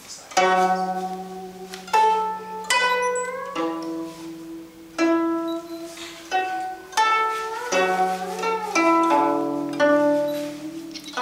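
Guzheng (Chinese bridged zither) played solo: a slow melody of plucked notes about once a second, each ringing out and fading, some sliding in pitch after the pluck.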